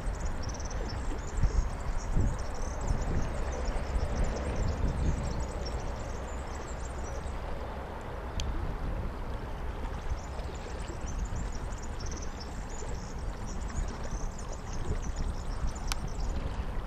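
Wind buffeting the microphone over a steady low rumble, with faint high chirping throughout.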